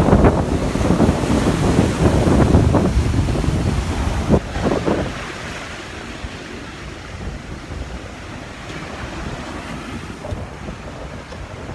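Sea waves washing on the shore, with wind buffeting the microphone. It is loud and rough for about the first five seconds, then settles to a quieter, steady wash.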